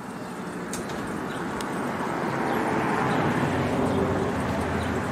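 A road vehicle passing. Its steady, unpitched noise swells to a peak about three to four seconds in and then fades, with two faint clicks in the first two seconds.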